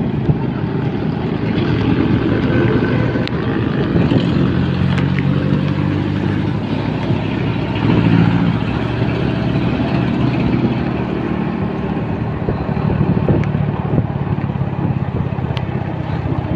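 Motorcycle engine running steadily while the bike rides along a road, with a rushing haze of wind and road noise around it.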